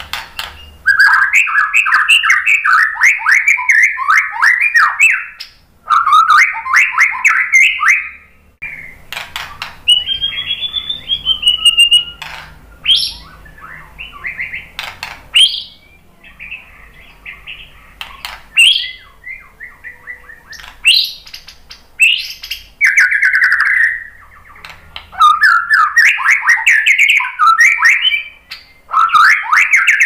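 A caged white-rumped shama singing loudly: long runs of fast, varied chattering notes, easing off in the middle to scattered whistles and sharp calls, then running fast again near the end.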